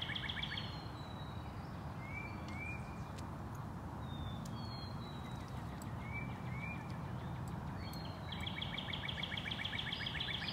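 Wild birds singing: short rising chirps, often in pairs, and brief higher notes, then a fast trill of rapidly repeated notes starts about eight seconds in and runs on. A steady low background noise lies underneath.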